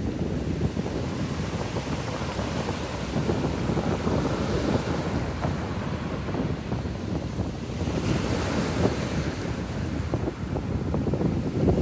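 Small waves breaking and washing onto a shingle beach, with wind buffeting the microphone.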